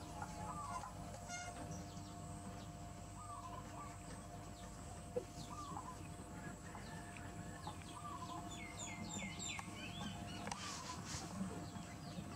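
A chicken clucking in short calls about every second and a half, with a quick run of higher bird chirps about two-thirds of the way in, over a steady background hum.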